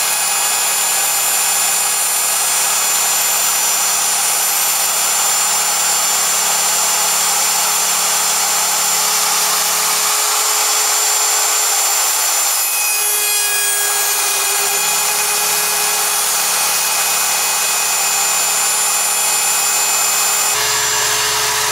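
Electric router with a 3/4-inch bit running at full speed on a CNC mill, cutting along the wooden stringer of a foam surfboard blank: a steady, loud cutting noise over a thin high whine, shifting briefly about two-thirds of the way through.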